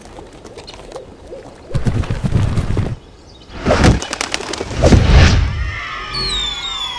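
Sound effects for a stop-motion ident: two deep rumbling booms, the loudest about five seconds in, then several falling whistle-like glides near the end.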